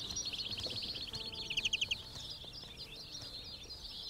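Several small finches singing at once, the caged decoy birds of a finch-trapping net, a chorus of quick twittering phrases. A fast, loud trill stands out about one and a half seconds in.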